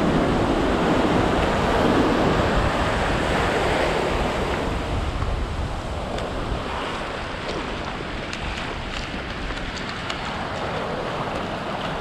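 Small surf waves breaking and washing up over a sandy beach. The rush of the wash is fuller in the first few seconds, then turns to a fine crackling fizz as the foam spreads over the sand. Wind buffets the microphone.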